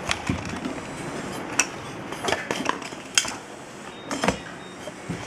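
Hollow plastic casing pieces knocking and clicking against each other and the steel tank as they are handled and fitted together, about half a dozen sharp clicks spread unevenly over the few seconds.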